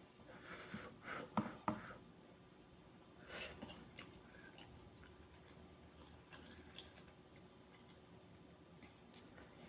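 Quiet eating sounds from a mukbang: chewing with a few sharp clicks and knocks of utensils against a bowl in the first two seconds, a short rushing sound about three and a half seconds in, then only small scattered ticks.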